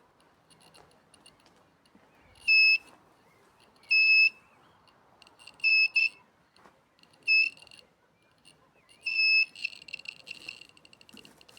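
Electronic beeper of a long-range locator device giving short, high-pitched beeps about every second and a half. Near the end it breaks into a fast stream of rapid pulses.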